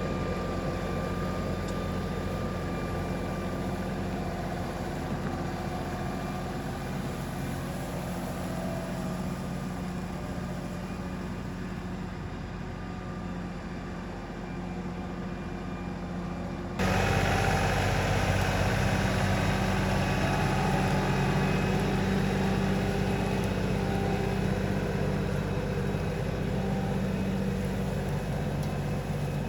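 LS farm tractor's diesel engine running steadily. About 17 seconds in it abruptly gets louder and brighter, then runs on at the higher level.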